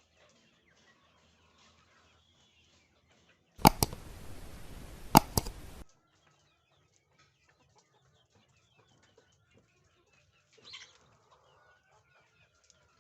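Fayoumi chickens clucking and calling quietly. About four seconds in there is a loud burst of noise lasting about two seconds, with sharp claps in it.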